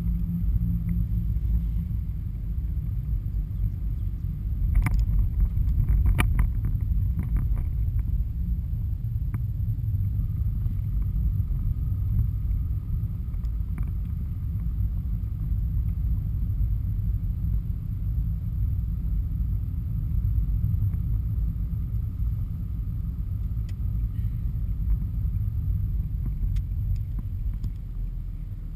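Low, steady rumble of a car driving, engine and tyre noise heard inside the cabin, with a few short clicks or knocks about five to seven seconds in.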